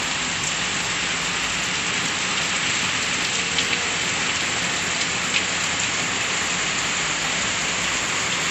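Steady rain-like hiss with a few faint ticks.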